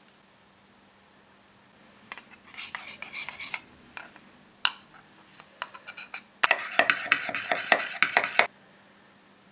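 Metal spoon stirring gummy candy mix in a small bowl, scraping and clinking against the sides in short bursts from about two seconds in, with a sharp clink partway through. The stirring is quickest and loudest near the end, then stops; a faint steady hum runs underneath.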